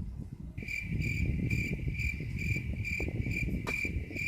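A cricket trilling as one steady, high, pulsing tone of about two pulses a second. It starts about half a second in, over a low rumble.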